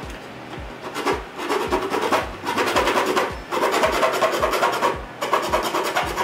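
Hacksaw blade cutting through the plastic edge of a motorcycle's front fairing, a rasping in steady back-and-forth strokes, about two a second.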